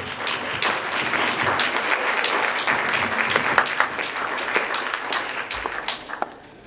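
Audience applauding, a dense round of clapping that thins out to scattered single claps near the end.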